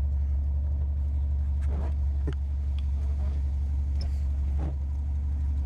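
Volvo engine idling with its exhaust ripped off, a loud, steady low drone. A few faint knocks sound about two seconds in and near the end.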